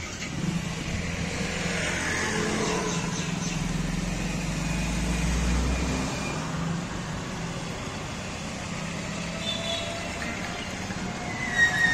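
Road traffic: a motor vehicle's engine running close by with a steady hum, and a deeper rumble that swells for a couple of seconds in the middle before fading.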